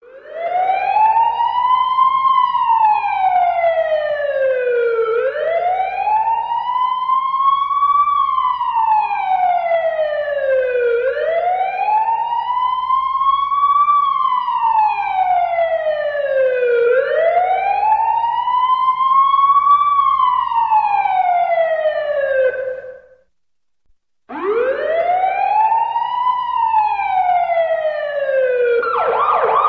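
Police car siren on its wail setting: a slow rise and fall in pitch, about six seconds to a cycle, repeated four times. It cuts off after the fourth cycle, starts again about a second later, and switches to a fast yelp near the end.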